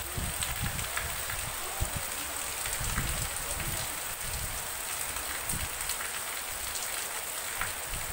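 Heavy rain pouring steadily, with irregular low thumps underneath.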